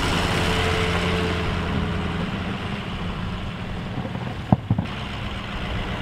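Ford F-250 pickup truck plowing snow, its engine running as it drives away and the engine hum fading after about two seconds. Two short sharp knocks sound about four and a half seconds in.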